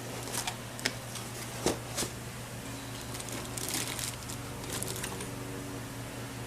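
Packaging handled during an unboxing: scattered taps and clicks with brief crinkling, over a steady low hum.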